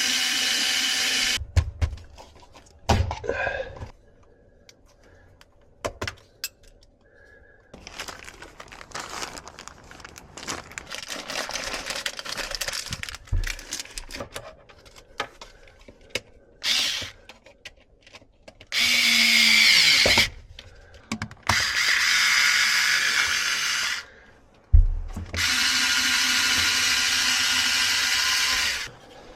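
A handheld power drill running in several bursts of one to four seconds, one of them winding down in pitch as it stops, with quieter clattering between the bursts.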